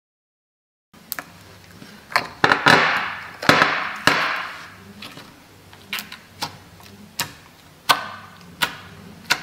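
Fluffy slime made from toothpaste and dish soap being squeezed and poked by hand, starting about a second in: sharp sticky clicks and pops, with a longer wet squishing stretch about two to four seconds in.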